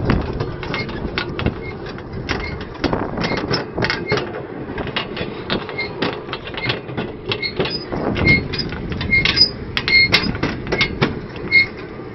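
Hand-pumped rail trolley rolling along narrow-gauge track. Its steel wheels rumble steadily on the rails under many irregular clicks and clanks from the rails and the pumped lever mechanism, with short high squeaks that come more often near the end.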